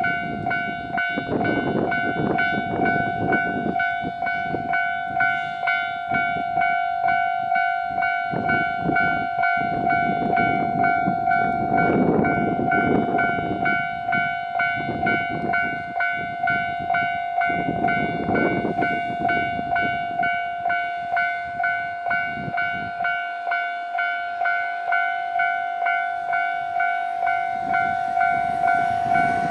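Japanese railway level-crossing warning bell ringing at a steady, even pulse of about three strikes every two seconds, signalling an approaching train. Under it, a rushing noise swells and fades several times.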